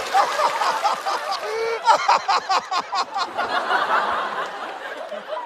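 Studio audience laughing. The laughter is loudest in a run of quick pulses about two seconds in, then dies down toward the end.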